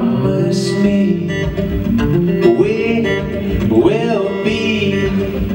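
Acoustic guitar played live, with a sung melody that bends and slides between notes.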